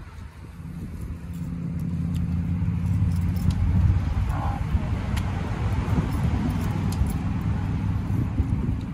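An engine hum that grows louder over the first few seconds and then runs steadily, with a few light clicks over it.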